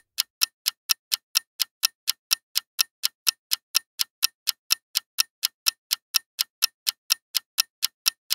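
Countdown timer sound effect: clock-like ticks, evenly spaced at about three a second.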